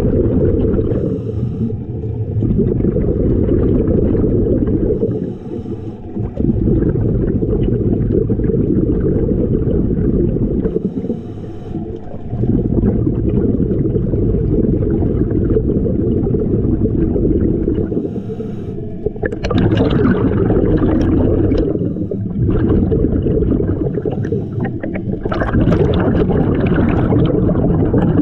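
Underwater gurgling and rumbling of a scuba diver's exhaled bubbles, mostly low-pitched, rising and dropping in breathing cycles about every six seconds, with hissier bursts in the second half.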